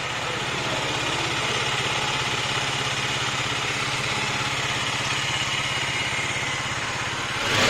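Husqvarna Vitpilen 250's single-cylinder 249 cc engine idling steadily, getting louder just before the end.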